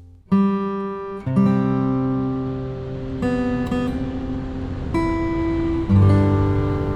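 Acoustic guitar music: strummed chords, a new chord struck about every one to two seconds, starting a moment in.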